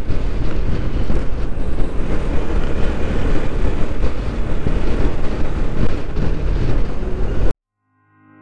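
Wind buffeting a helmet-mounted microphone over motorcycle engine and road noise while riding. It cuts off abruptly near the end, and faint music begins to fade in.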